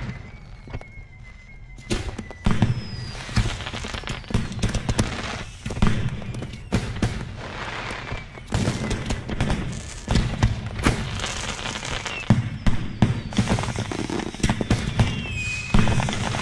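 Fireworks going off: a continuous run of sharp bangs and crackling, with a few thin whistles gliding in pitch, one near the start and one near the end.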